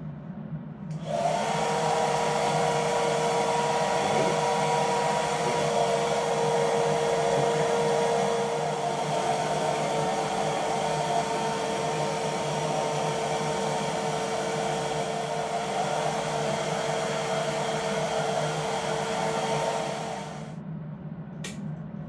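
Handheld blow dryer running steadily, a motor whine over a rush of air; it switches on about a second in and shuts off about twenty seconds in.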